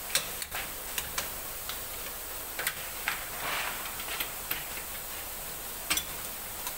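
Scattered metal clicks and taps of hand wrenches working the bolts of a screw air compressor's oil tank cover as it is being dismantled, about a dozen at uneven intervals.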